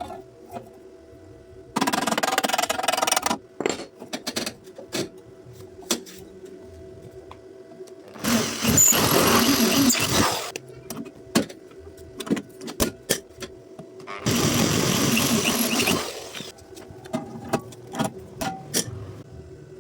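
Electric arc welding in three separate runs of about two seconds each, a dense crackling hiss that starts and stops abruptly, with scattered sharp clicks and a faint steady hum in the pauses between welds.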